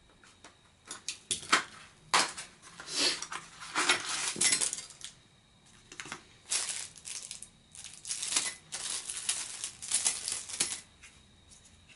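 Light plastic propellers clicking and clattering as they are handled and laid down, mixed with packaging rustling, in irregular bursts that stop shortly before the end.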